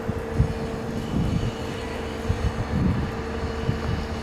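MAN TGS 32.400 concrete mixer truck's diesel engine idling steadily, with irregular low thumps over it.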